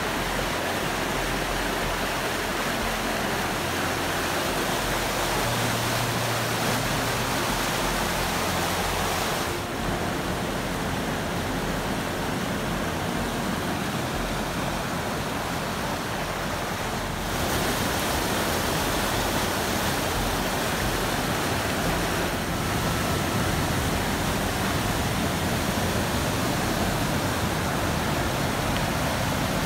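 A creek in full spring flood rushing over small waterfalls and rapids: a steady, dense rush of churning water. It shifts slightly in level and tone twice along the way.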